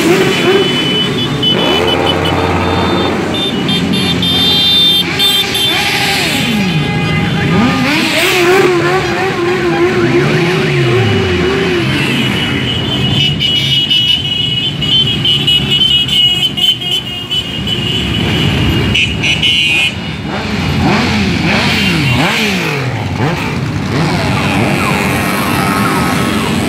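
A long line of motorcycles riding past one after another, engines revving and their pitch rising and falling as each bike goes by.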